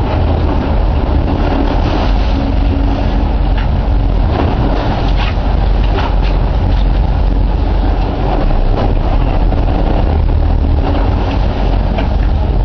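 Sport-fishing boat's inboard engines running steadily under way, a constant low rumble mixed with rushing wind and water noise and a few short knocks.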